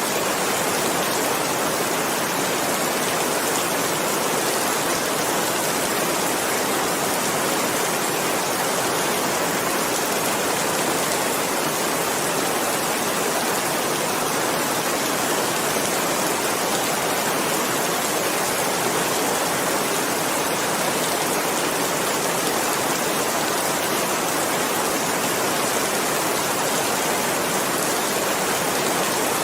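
Steady, dense rainfall: an even hiss of rain with no single drops standing out and no change in level.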